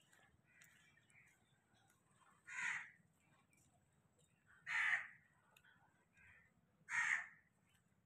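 A crow cawing three times, one harsh caw about every two seconds.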